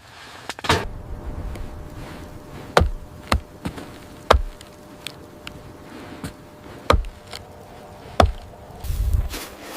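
A series of sharp knocks or impacts at irregular intervals, about six loud ones with fainter taps between, like wood being chopped or struck. A low rumbling noise comes in near the end.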